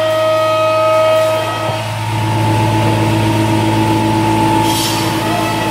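CNC router spindle whining steadily as it cuts through a wood panel, over a low steady hum. About a second and a half in, the whine shifts to a different pitch as the cut changes.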